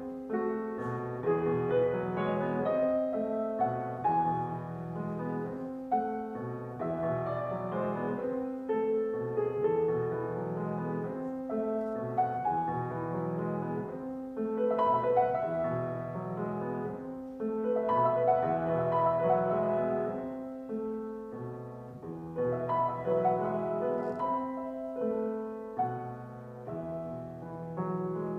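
Solo grand piano playing a flowing classical-style piece, a melody over sustained chords, swelling and easing in phrases every few seconds.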